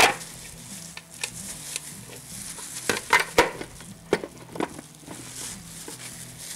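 Glass steamer lid clinking and knocking against a stainless-steel steamer pot as it is pressed down over a whole fish too large to let it close, in scattered sharp knocks, the loudest about three and a half seconds in.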